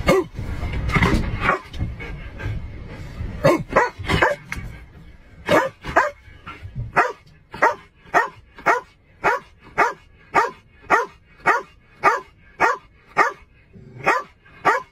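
A shepherd-type police K-9 dog barking in the rear kennel of a patrol car. The barks are irregular at first, then settle about five seconds in into a steady run of about two barks a second.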